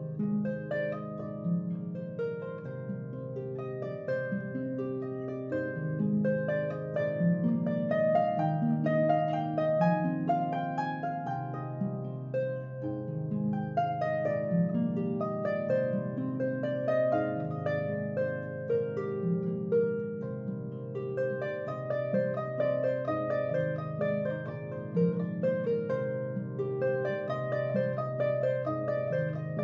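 Harp music playing throughout: a flowing run of plucked notes over a lower bass line.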